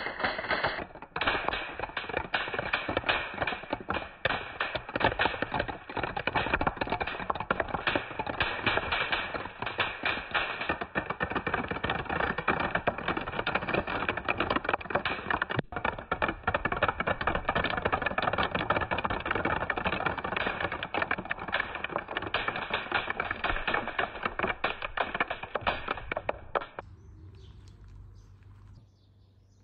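Dozens of glass marbles clattering down wooden steps in a dense, continuous stream of clicks and taps. It stops abruptly near the end, leaving only a faint background.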